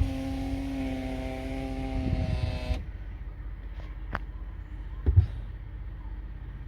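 Toyota Sienna's 3.5-litre V6 running with a low rumble; for the first three seconds a steady whine with hiss sounds over it, then cuts off suddenly. A sharp knock follows about five seconds in.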